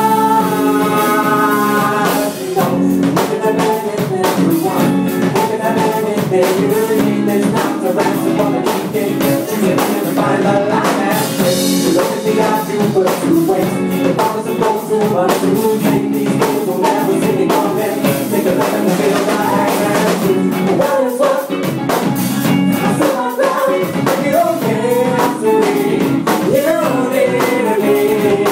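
Live band playing: a man and a woman singing into microphones over a drum kit and guitar. Sustained held notes in the first two seconds give way to the full band with drums.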